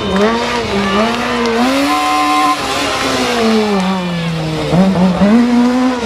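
Rally car engine revving hard, its pitch climbing and falling as the driver accelerates and lifts. The revs drop about halfway through, slide down over more than a second, then climb sharply again near the end.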